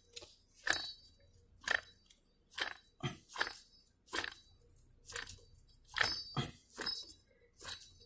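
Worn front wheel hub bearing assembly from a 2003 Chrysler Town & Country, turned by hand off the vehicle, giving an uneven run of sharp metallic clicks, about one every half second to a second. The bearing's hum, the cause of the van's wheel drone, is only faintly heard.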